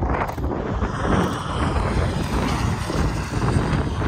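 Wind buffeting the microphone: a rough, continuous rushing noise, heaviest in the low end.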